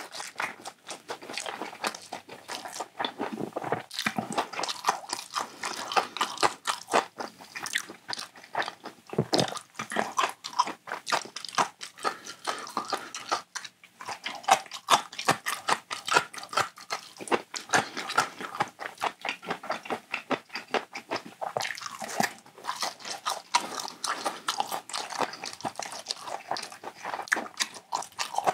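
Close-miked chewing and crunching of fried, battered Korean market food, a stuffed fried pepper (gochu twigim), as a continuous run of small crisp clicks and wet mouth sounds, with brief pauses around 4 and 14 seconds in.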